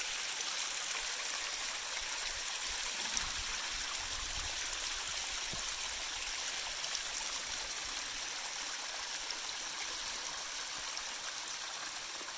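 Small mountain creek tumbling over a rocky cascade into a pool: a steady rush of running, splashing water.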